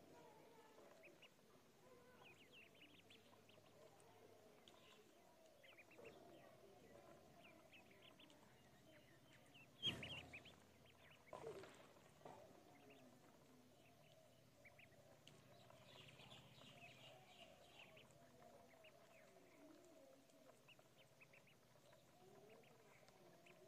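Faint, high-pitched peeping of a flock of ducklings as they feed, many short chirps overlapping. A sharp knock about ten seconds in, and a smaller one just after.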